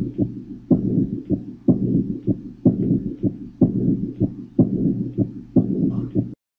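Recorded heart sounds through a stethoscope at about one beat a second. Each beat is a strong sound followed by a weaker one, with continuous noise between them, a heart murmur. The recording cuts off suddenly near the end.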